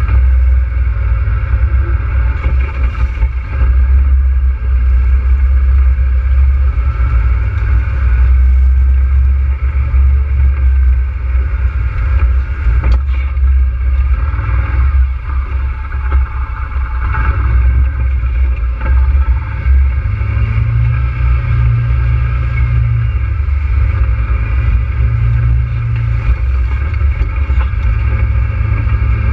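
ATV engine running steadily, with a deep rumble and a mechanical drone that hardly change.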